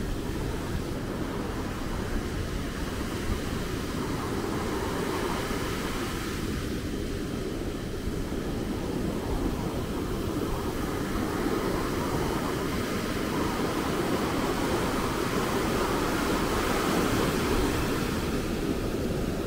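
Atlantic Ocean surf breaking and washing up the shore: a steady rushing with a deep rumble underneath, swelling slowly in the second half.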